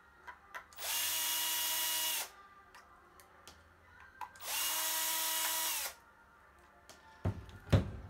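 Cordless drill-driver spinning out the side mounting screws of a 2.5-inch laptop hard drive: two steady whining runs of about a second and a half each, a few seconds apart. A couple of sharp knocks come near the end.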